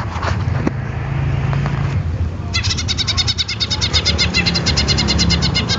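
Caged green leafbird (cucak ijo) singing a fast, even run of high notes, about ten a second, starting about two and a half seconds in, over a low steady rumble.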